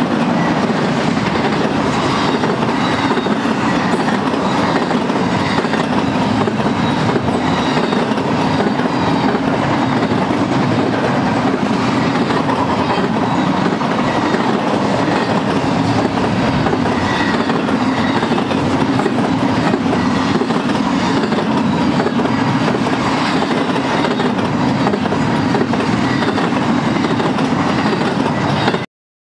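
Double-stack intermodal train's container-laden well cars rolling past: a steady rumble and clatter of steel wheels on the rails, cutting off suddenly near the end.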